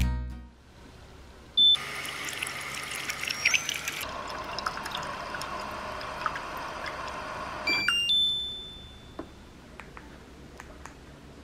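Water running for about six seconds, changing in sound about halfway as it fills or hits something else, starting and stopping suddenly with brief high squeaks; then a few light clicks and knocks.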